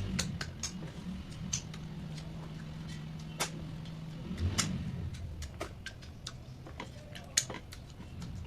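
Close-up eating sounds: irregular sharp mouth clicks and smacks from chewing, over a low steady hum.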